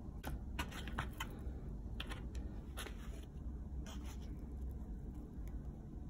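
Fingers and a pizza slice scraping and rubbing against a cardboard pizza box as the slice is pulled out: a run of short scratchy clicks in the first four seconds, over a steady low hum.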